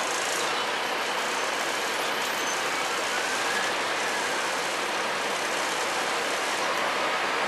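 Three-axle double-decker bus with its engine idling, a steady even running noise that holds the same level throughout.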